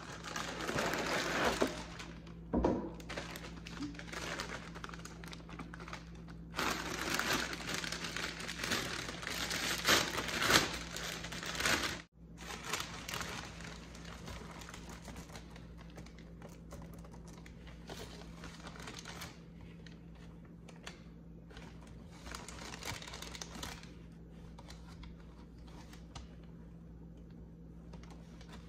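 Thin plastic cereal bag liner crinkling as hands open it and dig through the dry cereal pieces inside. Loudest in the first couple of seconds and again from about a quarter to less than halfway in, then a softer rustle.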